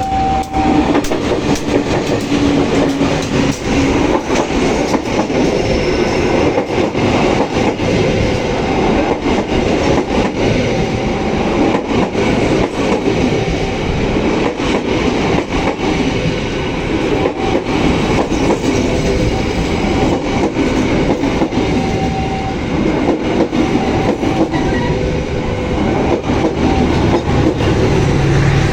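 A train passing close by on the double track: a steady loud rumble of wheels with rapid clicking of wheels over rail joints. The tail of its horn is held for the first few seconds.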